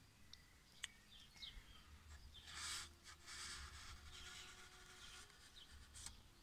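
Near silence: quiet outdoor ambience with a few faint, short bird chirps, and the soft scratchy swish of a paintbrush laying acrylic paint on a polystyrene board about two and a half seconds in.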